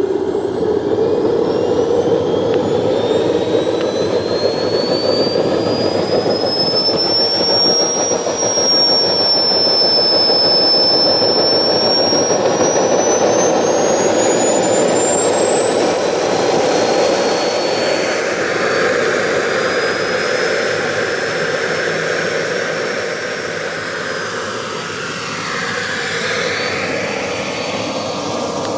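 Model turboprop turbine of an RC scale Pilatus PC-21 spooling up and running: a high whine climbs in pitch over the first several seconds, then holds and wavers up and down, over a steady rushing of turbine and propeller.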